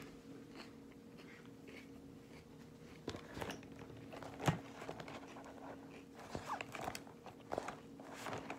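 Faint handling noises of makeup items being picked up and rummaged through in a makeup bag: small clicks, taps and rustles, with one sharper click about four and a half seconds in. A steady low hum runs underneath.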